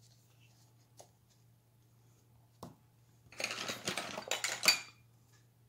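Small hard objects clinking and rattling as they are handled on a crafting table: two faint clicks, then a burst of clatter lasting about a second and a half, starting about three and a half seconds in.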